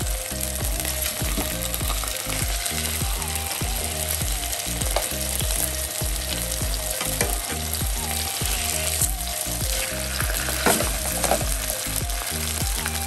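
Cod fillets frying in shallow oil in a non-stick pan, a steady loud sizzle, with a spatula now and then lifting and moving the fish.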